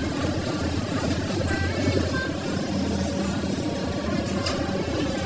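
Diesel engine of heavy earth-moving machinery running steadily, a low even hum.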